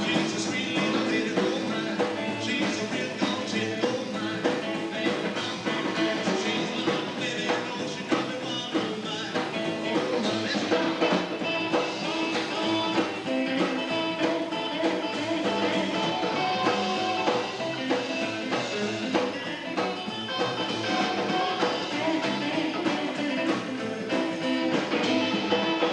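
Rock and roll band song playing steadily, with guitar and vocals.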